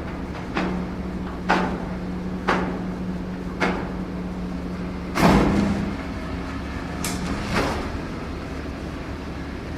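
Scale RC hydraulic excavator working: a steady hum from its hydraulic pump, with a held whine that stops about three-quarters of the way through. Over it come sharp knocks about once a second, the loudest about five seconds in, as the bucket and arm move and strike.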